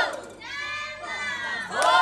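A crowd of many voices shouting and cheering together. A loud group shout dies away at the start, and another swells up near the end.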